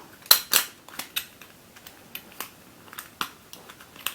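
Bubble jigsaw puzzle pieces clicking and knocking as one piece is worked out of the puzzle: two loud clicks within the first second, then lighter scattered clicks.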